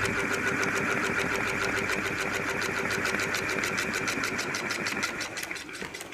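Electric ceiling fan running with a rapid, steady khat-khat knocking rattle and a whine, jerking as it turns. The repairer says the fault does not come from the bearings. The noise dies down near the end.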